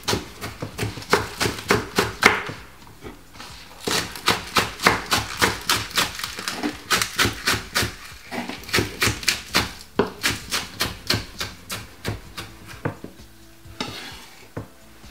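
Kitchen knife chopping spring onions on a wooden chopping board: quick, even strokes about four a second, in several runs with short pauses, stopping a couple of seconds before the end.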